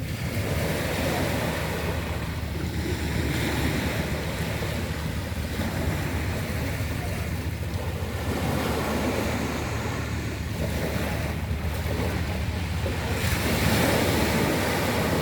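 Sea waves washing onto a pebble beach, the water surging up and dragging the pebbles back several times, loudest near the end, with wind rumbling on the microphone.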